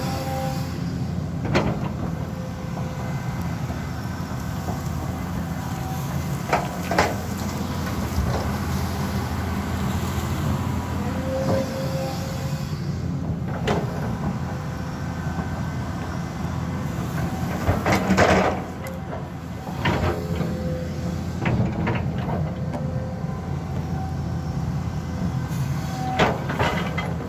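Caterpillar 320D2 tracked excavator at work: the diesel engine runs steadily while the bucket digs and drags soil, with brief whines and several sharp metal clanks from the bucket and linkage, the loudest about 18 seconds in.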